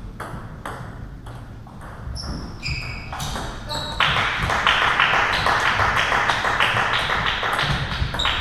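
Table tennis rally in a large hall: the ball clicking off the bats and table. About halfway through, a loud, dense hiss starts suddenly and largely covers the clicks.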